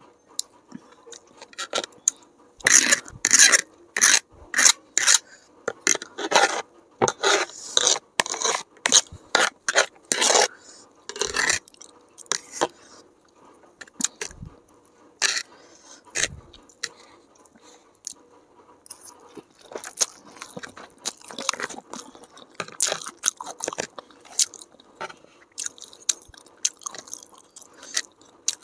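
Metal fork scraping and clattering across a textured plastic tray while gathering chow mein noodles, with close-miked chewing. The scrapes come thick and fast through the first ten seconds or so, then more sparsely.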